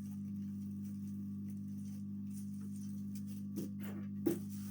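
Steady low electrical hum, with two light knocks of small objects handled on a workbench near the end, the second louder.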